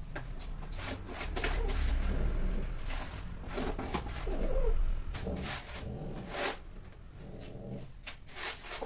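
Domestic cats mating, giving several low, wavering yowls and growls, with scuffling clicks.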